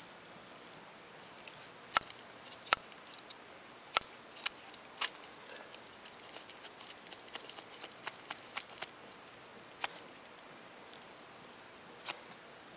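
Schrade SCHF27 fixed-blade knife shaving feather sticks from a stick of damp wood: a string of sharp clicks and snaps as the blade bites in and shaves, a few strong ones in the first five seconds, then a run of lighter ticks.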